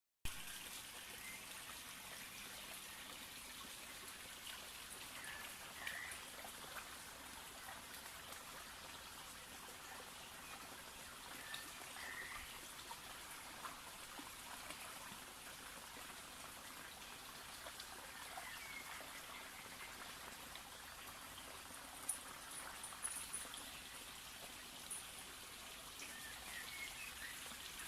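Faint, steady trickling of running water, with a few small clicks and ticks now and then.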